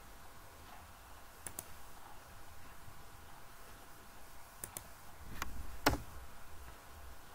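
Computer mouse clicks: a quick pair about one and a half seconds in, another pair past the middle, then two more single clicks, the last and loudest near the end, over a faint steady hum.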